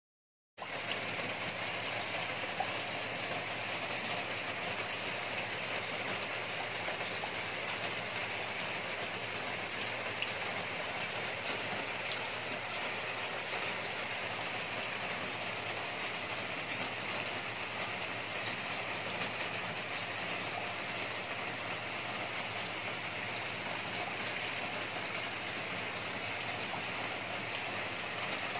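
Steady splashing, rushing water that cuts in abruptly about half a second in and then runs at an even level.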